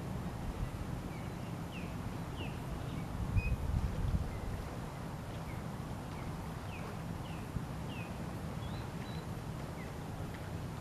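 Wind on the microphone, a steady low rumble that swells briefly about a third of the way in, with many short, high bird chirps scattered throughout.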